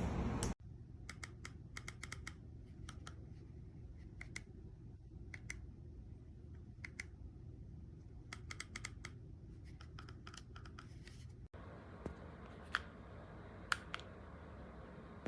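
Quick clusters of light clicks and taps over a faint steady hum, with two sharper ticks near the end.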